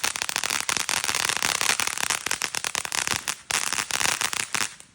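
TNT Fireworks 'Roar' consumer firework in its crackle effect: a dense, rapid crackling of many small sharp pops. It thins out and stops just before the end as the effect burns out.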